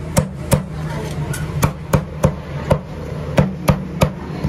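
A cleaver chopping crispy pork belly on a thick round wooden chopping block: about nine sharp chops at an uneven pace, roughly two a second.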